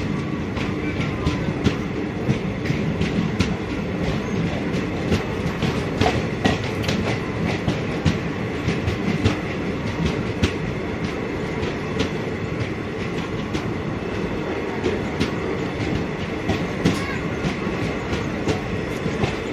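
Passenger train coach running along the track, heard from aboard: a steady rumble from the wheels and running gear, with frequent sharp, irregular clicks and clatter from the wheels on the rails.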